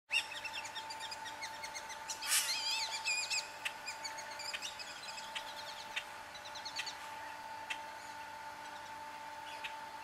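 Birds chirping and singing: a quick run of short chirps, a louder warbled phrase about two seconds in, then scattered single chirps. A faint steady tone runs underneath.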